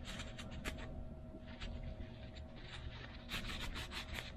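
A paper towel rubbing and scratching against a small metal carburetor part as it is wiped clean of gasket residue. The strokes are short: a few near the start, then a quicker cluster a little past three seconds.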